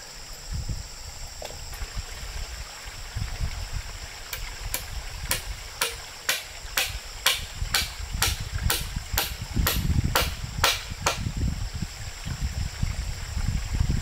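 Hammer striking a wooden bridge plank: about sixteen sharp blows, two or three a second, starting about four seconds in and stopping about seven seconds later.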